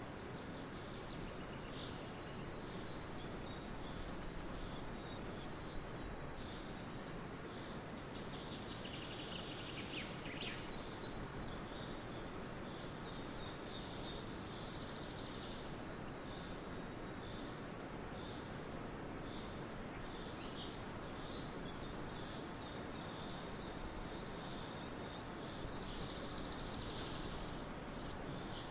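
Several songbirds singing and calling: high chirps and short trills, a few at a time, over a steady rushing background noise.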